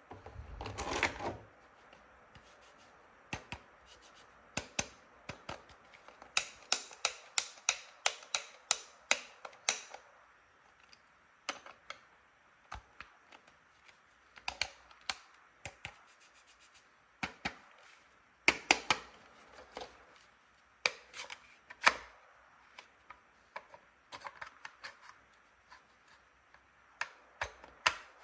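Hard plastic toy tool pieces being handled, clicking and tapping in irregular runs of sharp clicks, with a short scrape about a second in.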